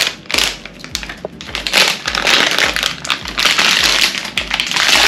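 Plastic bag of sterile water crinkling and crumpling as it is handled, in several rustling bursts.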